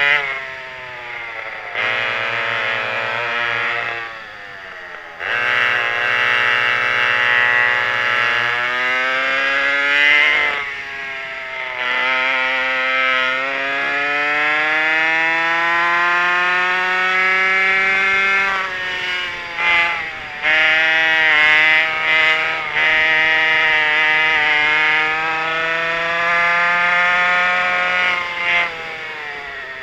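Twin McCulloch 5.3 cubic-inch two-stroke converted chainsaw engines on a vintage rear-engine racing kart, run flat out on the track. Their note climbs slowly in pitch for several seconds at a time, then falls sharply each time the throttle is lifted, about four times.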